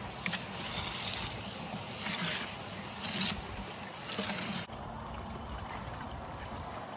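Water from a hose running into the hopper of a gold-and-ore separator, with a rushing swell about once a second as sand is scooped in. About two-thirds of the way through it switches abruptly to a steady trickle of water pouring from the outlet pipe into a tailings tub.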